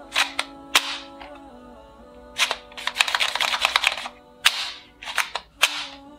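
Toy gun shooting sounds: sharp single shots, a rapid burst lasting about a second around three seconds in, then more single shots, over background music.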